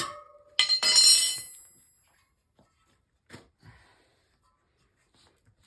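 Steel tire irons clanking against each other or the wheel rim, a loud metallic clatter about half a second in that rings out over a second, followed by a few faint small clicks.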